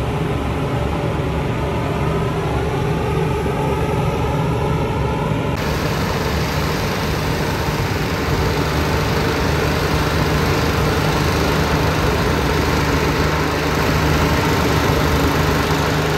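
Hot air balloon inflation: a propane burner firing into the envelope with a steady rushing blast over the low hum of the inflator fan's engine.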